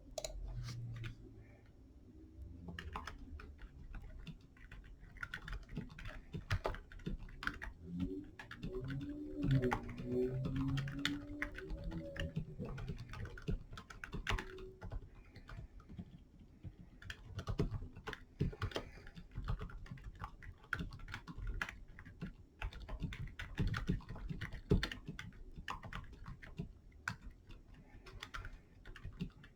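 Typing on a Gamakay K66 65% mechanical keyboard with lubed silent Alpaca linear switches and POM keycaps: a continuous, fairly fast stream of keystrokes.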